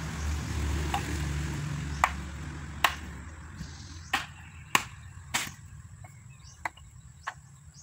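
Machete chopping firewood on a wooden block: a series of sharp wooden knocks, about six or seven blows starting about two seconds in, spaced roughly half a second to a second apart.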